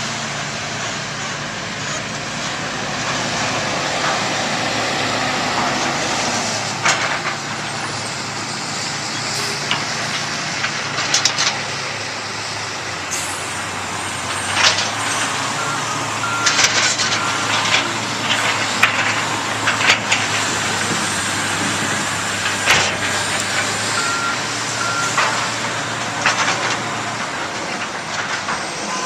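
Heavy diesel machinery and truck engines running steadily, with scattered sharp bangs and clanks from about seven seconds in, and a few short beeps.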